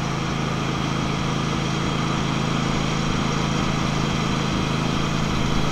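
Riding lawn mower's engine running steadily at an even idle.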